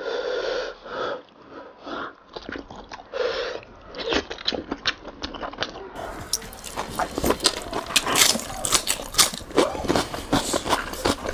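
Close-miked wet chewing and lip-smacking on braised lamb-head meat, many quick clicks and smacks, with meat being pulled off the head by hand. A few short hums of enjoyment come in the first few seconds.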